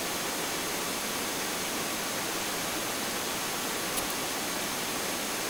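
Steady electronic hiss on the helicopter's intercom and radio audio feed, with a faint high steady tone and a single click about four seconds in.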